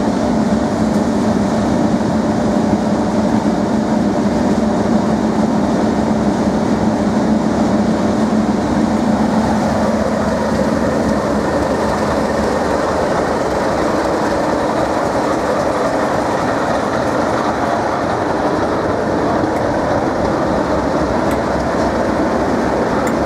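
Class 37 diesel locomotives with English Electric V12 engines running loudly as they pass close by, with wheels clicking over the rail joints. The engine sound shifts higher about ten seconds in.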